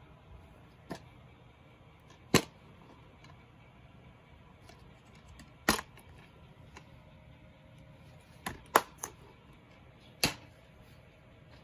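A white plastic DVD keep case being opened and snapped shut: a series of sharp plastic clicks and snaps, about seven in all, with three in quick succession near the end.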